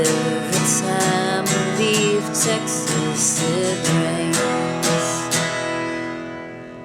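Acoustic guitar strumming the song's instrumental outro under a gliding melodic lead line. The strumming stops about five seconds in and the last chord rings out and fades.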